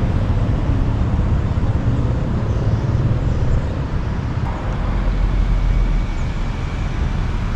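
Steady low rumble of road vehicle noise, like traffic or a vehicle in motion.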